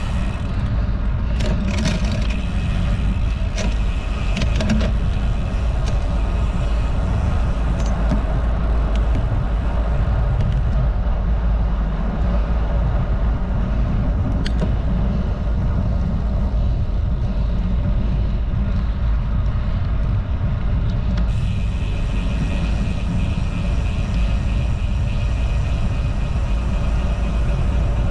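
Wind buffeting a road bike's action-camera microphone, a steady loud low rumble, mixed with the hum of tyres on asphalt as the bike picks up speed. A few light clicks come in the first few seconds.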